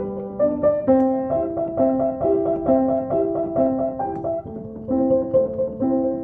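Instrumental music: a piano or keyboard playing a run of single notes in a steady rhythm, about two to three notes a second.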